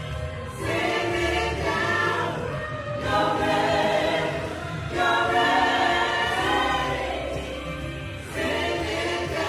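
A gospel choir singing in long held phrases, several voices together, over a low steady accompaniment.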